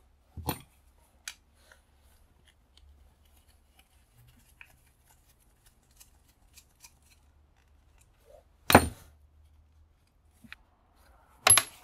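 Hand tools working a screw out of a welding electrode holder: faint ticks and scrapes of a screwdriver and pliers on metal, with a few sharp clacks, the loudest about nine seconds in and another near the end.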